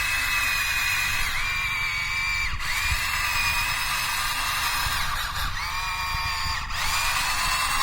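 Whining electric motors of a radio-controlled toy excavator, the pitch rising quickly as each motor starts, holding steady for a second or two, then dropping as it stops, several times over, over a low rumble.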